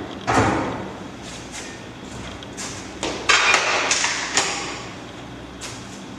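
Irregular knocks and short scrapes, with a longer, louder scraping stretch from about three seconds in to about four and a half seconds.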